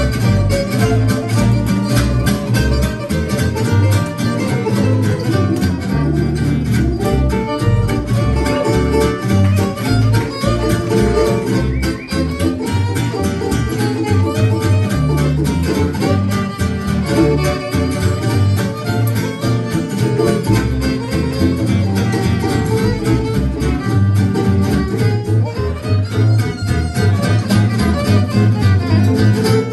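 Fiddle and two acoustic guitars playing an instrumental swing tune live, the fiddle carrying the melody over steadily strummed guitar rhythm.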